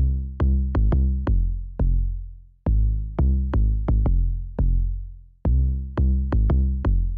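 Electronic trap-style beat from a drum machine: deep booming bass notes that fade out after each hit, each one opening with a sharp click, in an uneven, syncopated rhythm.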